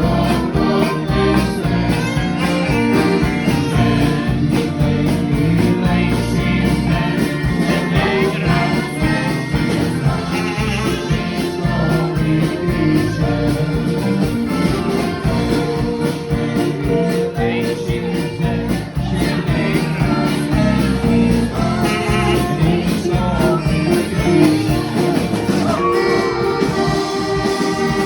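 Live band playing a song, with singing over the instruments.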